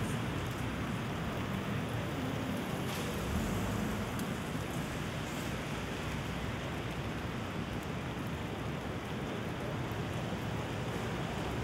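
Steady rain falling, an even hiss with a scatter of light drop ticks.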